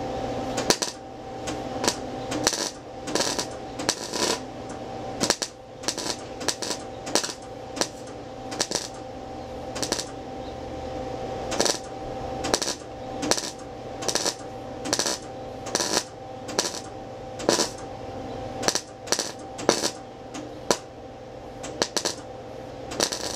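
MIG welder laying short tack welds on thin-gauge truck body sheet metal. Each trigger pull gives a brief burst of arc noise, about one to two a second, over a steady hum. The weld is being built up little by little around the edge of a hole to fill it as a rosette weld without burning through the thin metal.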